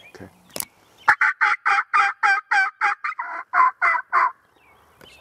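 Turkey yelping: a run of about a dozen loud two-toned yelps, each breaking downward in pitch, nearly four a second for about three seconds.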